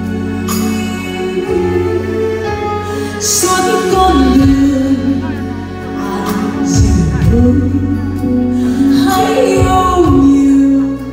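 Woman singing a Vietnamese ballad live into a microphone, backed by a band with sustained bass notes.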